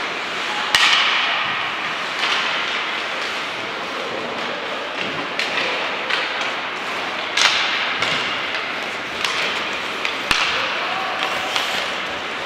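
Ice hockey play in a rink: about five sharp knocks and thuds of puck, sticks or players against the boards, the loudest about a second in, over a steady hiss.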